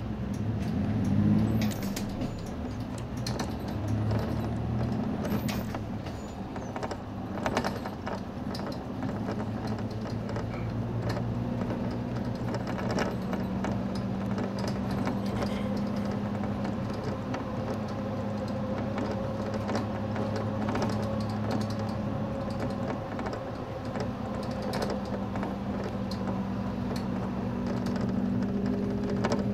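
Inside a Nissan Diesel Space Runner city bus on the move: the diesel engine's steady hum, with the cabin's fittings creaking and rattling in short clicks. The engine note shifts in pitch in the first couple of seconds, then holds steady.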